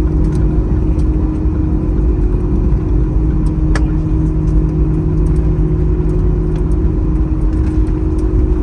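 Cabin sound of an Airbus A321 slowing after touchdown: a steady engine hum over a deep rumble from the wheels on the runway, heard from a window seat over the wing.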